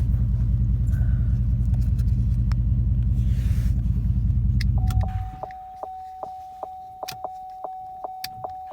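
A 2006 Chevrolet Trailblazer SS's 6.0 L V8 idling steadily, then shutting off abruptly about five seconds in. The truck's warning chime follows, a steady tone with rapid even ticks about two to three a second.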